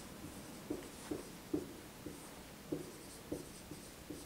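Dry-erase marker squeaking on a whiteboard as letters are written, a string of short strokes with small gaps between them.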